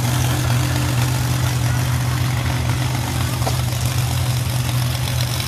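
Monster truck engine running at a steady idle, a deep, unchanging drone with no revving.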